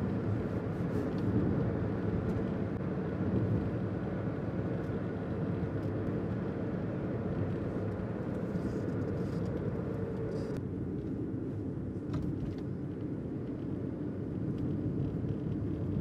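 Steady low rumble of a car on the road, heard from inside the cabin, with a few faint ticks over it. About ten seconds in, the higher part of the sound drops away, leaving a duller rumble.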